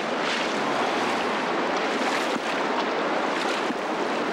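Steady rushing of whitewater river rapids around a canoe being paddled through them.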